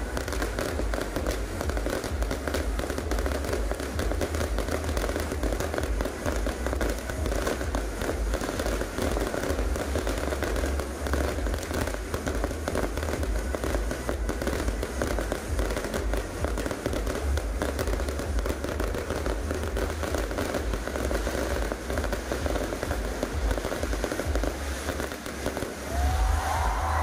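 Fireworks display going off continuously, a dense crackling and popping of bursting aerial shells. Near the end, rising whistles join in as a volley of rockets shoots up.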